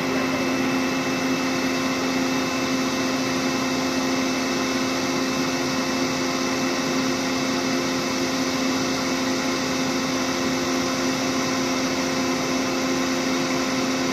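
Crawler rice combine harvester running steadily as it unloads harvested rice through its auger into a truck: a constant mechanical drone with a steady hum.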